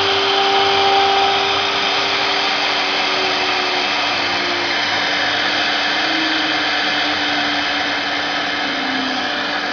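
CNC router machining a workpiece, its spindle running alongside the whirr of the dust collector and vacuum pump. A tone within the noise steps down in pitch several times as the job nears its end.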